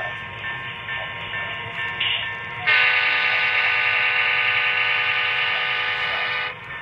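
Sound from a model Seaboard U30B diesel locomotive: the engine running, then a short horn toot and a long horn blast of about four seconds.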